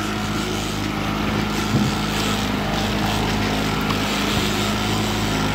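Boat engine running steadily, a constant hum under a hiss of wind and water.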